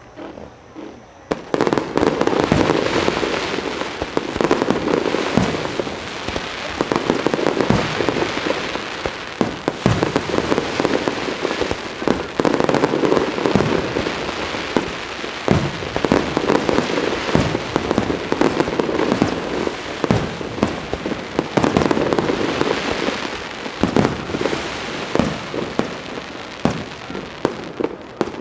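A fireworks display at full barrage: after a brief lull, a rapid, continuous volley of bangs from aerial shells, packed closely together, runs on without a break.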